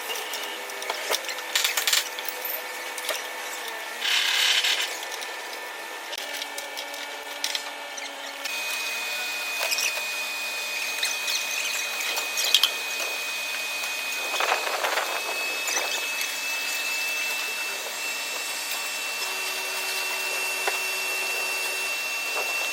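Power tool running during car body repair, with a few short louder bursts, then a steady high whine from about a third of the way in.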